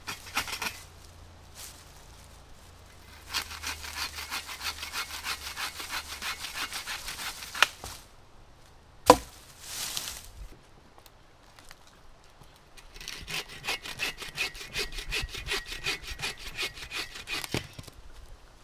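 Hand saw cutting wood in two bouts of quick back-and-forth strokes. A single sharp crack of wood snapping comes between them, about nine seconds in.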